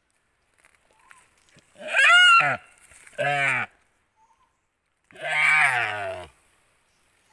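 A Timor deer doe calling out in distress three times, loud drawn-out bleats that fall in pitch, the last the longest and deepest, as it is eaten alive by a Komodo dragon.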